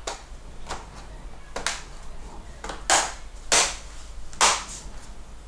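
Plastic underside cover panel of a Sony Vaio laptop being pressed home by hand, its clips snapping into place. About six sharp clicks, the loudest three coming about a second apart in the second half.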